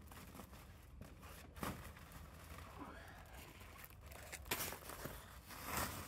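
Faint crinkling of a plastic sack being handled, with potatoes scraping and knocking as they are gathered into it, in scattered short bursts.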